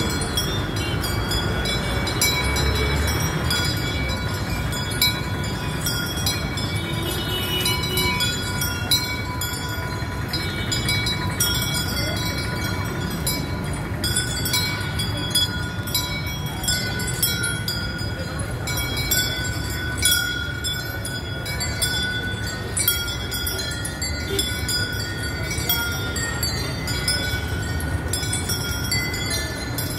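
Steady street din of traffic and people, with brief sharp clinks now and then.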